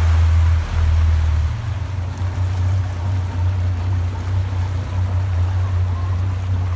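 Motorboat under way: its engine makes a low steady drone under the hiss of water churned up in the wake.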